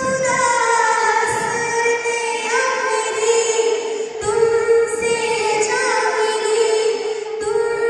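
A woman singing a Hindi film song solo, her voice gliding into and holding long notes over a steady held tone.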